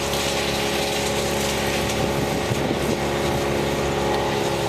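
Vermeer BC1500 wood chipper running at full speed: its diesel engine and cutting drum make a steady, loud roar.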